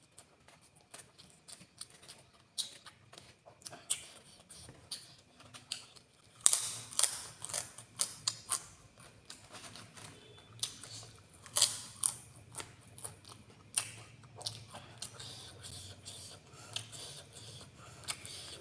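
Close-miked eating: chewing, with many sharp crunches and mouth clicks that grow busier and louder about a third of the way in.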